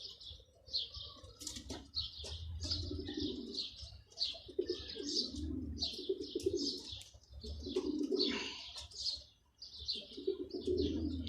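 Pigeons cooing in repeated low rolling phrases, with a continuous stream of short high chirps from small birds over them.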